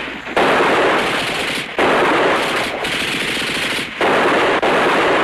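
Machine-gun fire in long sustained bursts, each a second or two long, with short breaks between them.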